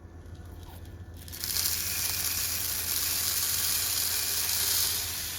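Coffee beans being charged from the hopper into the hot drum of an Aillio Bullet R1 roaster: a dense rushing hiss of pouring beans begins about a second and a half in and eases near the end, over a low steady hum.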